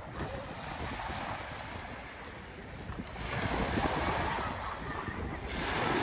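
Small lake waves lapping and washing onto a pebble shore, with wind on the microphone. The wash swells louder about three seconds in and again near the end.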